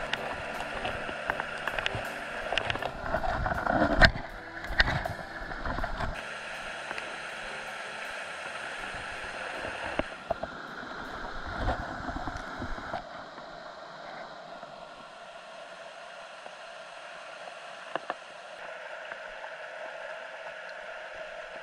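Mountain stream rushing over rocks in shallow rapids, a steady noise of running water. During the first six seconds or so, a series of knocks and clatter sits over it, the loudest about four seconds in. After that the water alone continues, a little quieter from about thirteen seconds.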